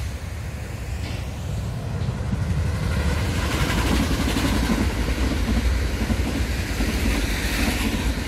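An ITX-Saemaeul electric multiple-unit passenger train passing close by, its wheels rumbling on the rails. The noise builds about two seconds in and stays loud as the cars go past.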